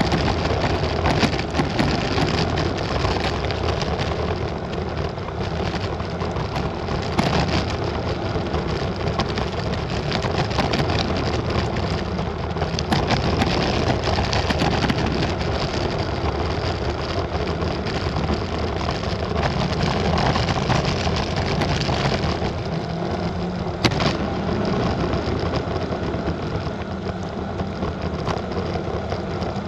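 Wind rushing over the microphone and tyre noise on the road from a moving Unagi electric scooter, a steady rough noise, with a couple of brief knocks from bumps along the way.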